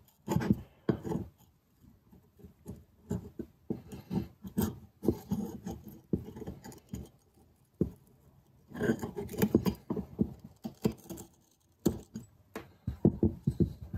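Steel hand scraper scraping an old gasket off a Lifan engine's cylinder head: a run of short, irregular scrapes and ticks, busiest about nine to eleven seconds in.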